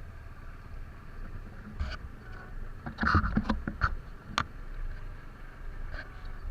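Motorcycle riding over a wet, rough track: a steady low rumble of engine and wind, with a cluster of sharp knocks and rattles about three to four and a half seconds in.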